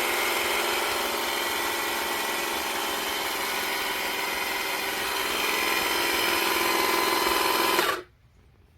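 The motor of a VEVOR electric car jack runs steadily with a whine, then stops suddenly about eight seconds in.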